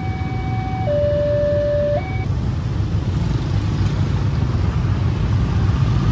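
A two-tone siren alternating between a higher and a lower note about once a second, stopping about two seconds in, over a steady low rumble of vehicle noise.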